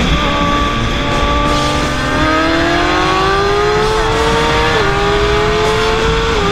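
Liter-class sport bikes' inline-four engines accelerating hard on a highway pull. The engine note climbs steadily in pitch, then drops at an upshift about five seconds in and again at the end, over a steady rushing noise.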